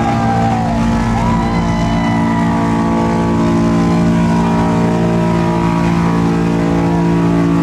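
Big diesel truck engine held at high revs, a loud steady drone that barely changes pitch.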